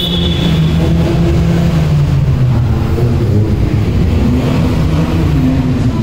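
Car engines running, a deep steady sound whose pitch rises and falls slightly. A high thin squeal dies away in the first second.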